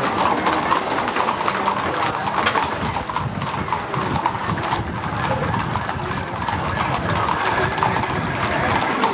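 Horses' hooves clip-clopping on asphalt as a group of ridden horses walks past, many irregular strikes overlapping.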